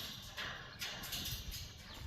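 A parrot making a series of short, sharp sounds, about four in two seconds.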